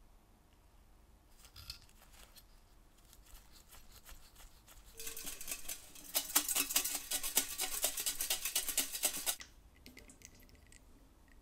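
Corroded brass fuel tank of a 1938 Tito Landi gasoline stove being shaken and handled, giving a dense, rapid metallic rattle for about four seconds in the middle. The rattle cuts off suddenly after a few softer clicks and knocks.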